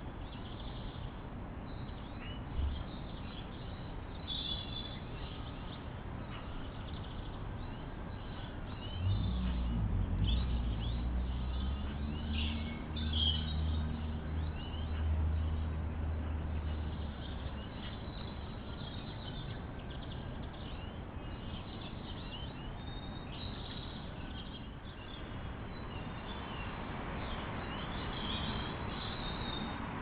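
Small garden birds chirping and calling in a steady scatter of short, high notes, heard through a wildlife camera's thin-sounding microphone. A low rumble swells up for several seconds in the middle and then fades.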